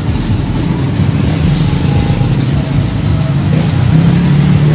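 A motor vehicle's engine running nearby with a steady low hum, growing a little louder near the end.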